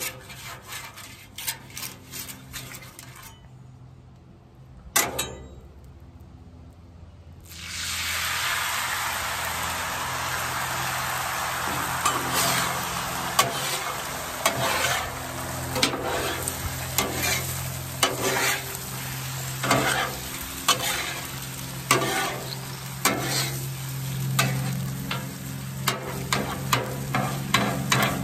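Metal spatula scraping and tapping on the steel top of a Blackstone griddle. About seven seconds in, beaten eggs hit the hot griddle and start to sizzle. The sizzle runs on under repeated spatula scrapes as the eggs are scrambled.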